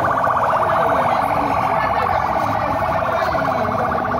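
Ambulance siren sounding a fast, steady warble, with a crowd's chatter underneath.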